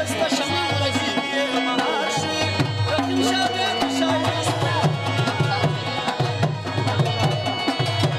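Pashto folk music played live on a harmonium and tabla: the harmonium holds steady chords while the tabla keeps a beat that settles into regular strokes about halfway through.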